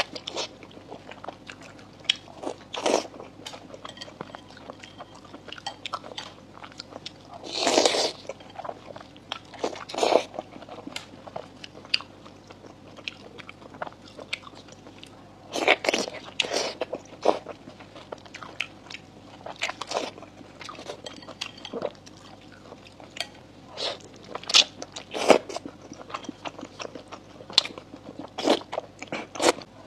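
Close-miked mouth sounds of oysters being bitten off bamboo skewers and chewed: irregular sharp clicks and smacks, with louder bursts every few seconds.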